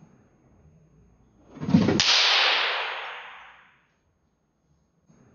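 Electric fly swatter swung through the air: a swish swells for about half a second and ends in a sharp crack about two seconds in, then a hiss fades over nearly two seconds. A faint steady high whine is present until the crack.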